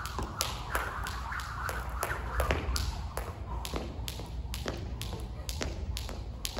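Jump rope slapping a hard floor on each turn, a steady run of sharp clicks about three a second.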